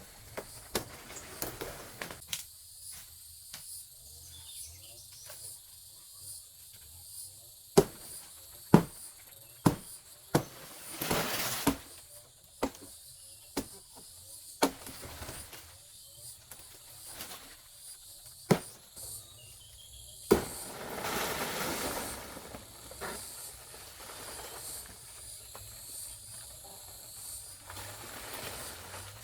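Sharp chopping blows at irregular intervals, roughly one a second, typical of a blade cutting palm or bamboo, with two longer rustling swells. Insects chirr steadily and high in the background.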